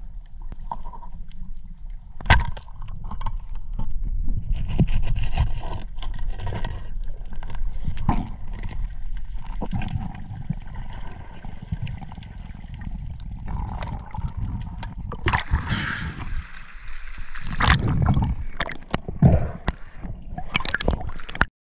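Underwater recording of a speared cuttlefish being handled: low rumbling water movement and gurgling, broken by many sharp clicks and knocks, louder around three-quarters of the way through, stopping abruptly just before the end.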